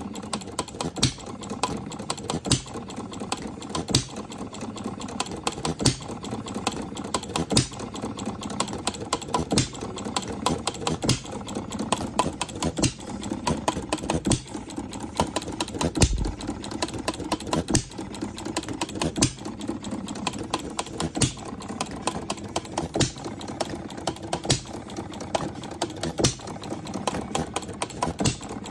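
Scale-model Jacobson hit-and-miss gas engine running, its flywheels turning steadily. It fires with a sharp pop every second or two, with light, quick mechanical clicking between the firings.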